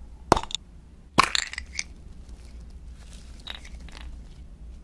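A hollow chocolate egg shell cracking as it is bitten. Two sharp snaps come first, then a louder break about a second in, followed by quieter crunching.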